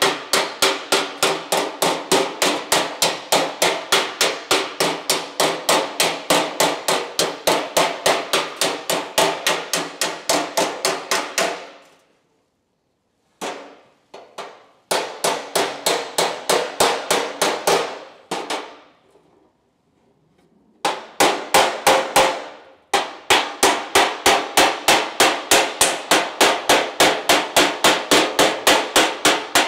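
Panel-beating hammer striking the edge of a sheet-steel door repair patch in a fast, even run of about four blows a second, each with a short metallic ring, as the rolled edge is shaped. The hammering stops briefly twice near the middle, then resumes.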